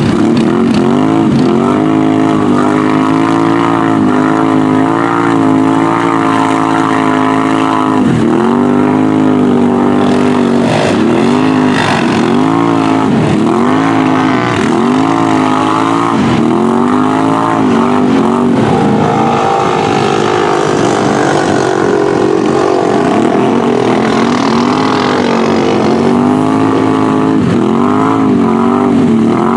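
4x4 ATV engine revving up and down over and over, about once a second for long stretches, as the quad churns through deep mud with its tyres spinning and throwing mud.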